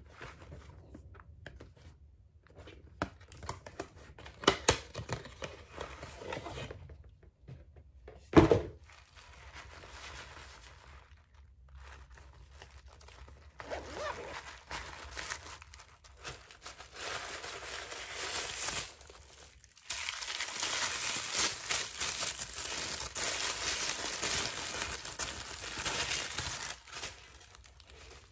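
Cardboard gift box and tissue-paper packing handled by hand: scattered light taps and clicks of the box, one loud thump about eight seconds in, then long stretches of rustling and tearing paper wrapping from about halfway through.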